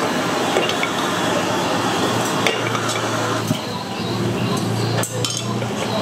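Kitchen clatter: metal utensils clinking and scraping against pots and pans, with scattered sharp clinks over a steady low hum.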